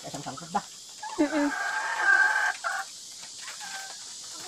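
Laying hens clucking, with one long drawn-out call starting about a second in and lasting nearly two seconds.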